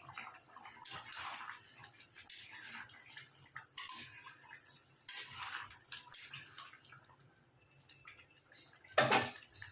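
Chicken curry in a pan making faint, irregular wet plopping and sloshing sounds, with one louder sudden scrape or clatter about nine seconds in.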